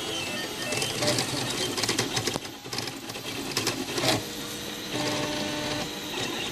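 Wooden 3D printer printing: its stepper motors whine in short tones that jump in pitch from move to move, over a busy rattle of clicks from the moving carriage.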